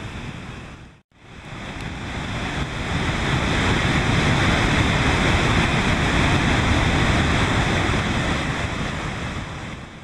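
Steady rushing roar of the Victoria Falls waterfall, heavy in the low end, mixed with wind on the microphone. The sound drops out briefly about a second in and swells back.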